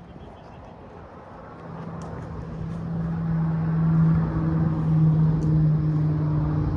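Engine running with a steady low drone, growing louder from about two seconds in and then holding, over wind noise.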